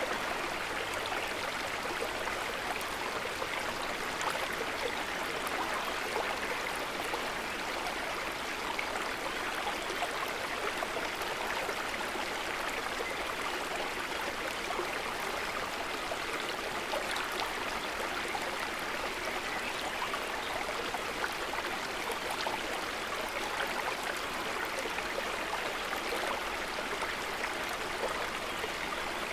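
A river's running water flowing steadily, a continuous rushing with small splashes and gurgles throughout.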